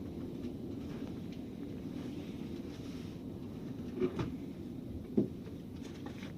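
Steady low rumble inside a moving car's cabin, with two short knocks about four and five seconds in.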